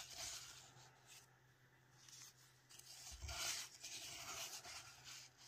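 Faint scraping and rubbing of a gloved hand against a granite mortar as pounded garlic and black pepper are scooped out, with a soft knock about three seconds in.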